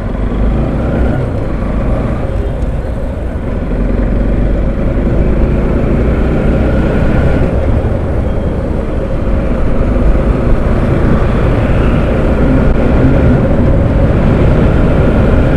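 Motorcycle engine running under way while riding, mixed with wind rush and road noise on the bike-mounted microphone. It grows louder over the first few seconds and then holds steady.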